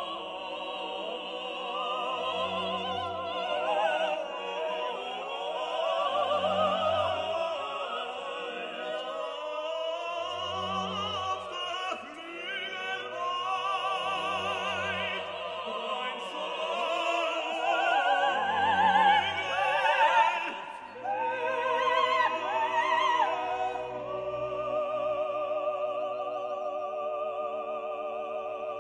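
Operatic singing with vibrato over an orchestra, with a low bass note repeating about every four seconds. Near the end the voice gives way to steady held orchestral chords.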